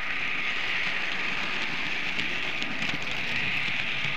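Märklin model train running along the track, a steady rattling whir close to the microphone riding on it, with faint small clicks from the wheels over the rails.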